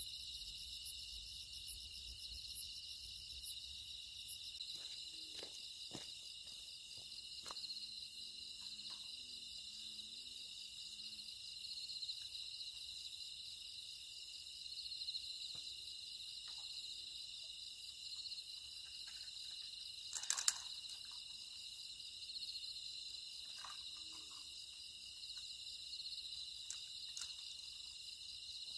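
Steady chorus of crickets and other night insects, a high, finely pulsing trill, with a few faint clicks and rustles underneath and one louder click about twenty seconds in.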